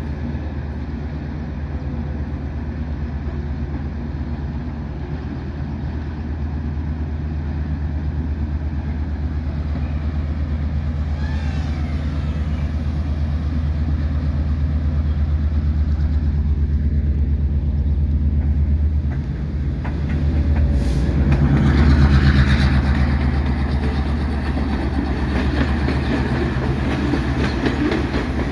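Coal train's diesel locomotives running past with a steady low engine drone that grows slowly louder. About 20 seconds in it dips briefly, then comes back louder and rougher with more rattle.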